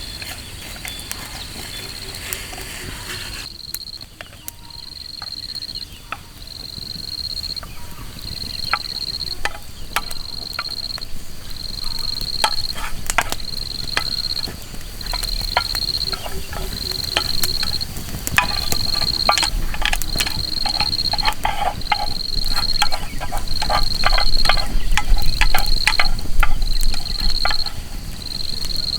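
An insect calling in a high, steady pulsed trill, about one pulse a second, over scattered drops of rain tapping on the tent, the taps growing denser and louder through the second half.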